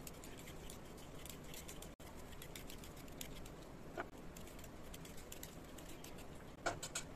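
Vegetable peeler scraping the skin off taro root in quick, faint, irregular strokes, with a few sharper clicks: one about four seconds in and a couple near the end.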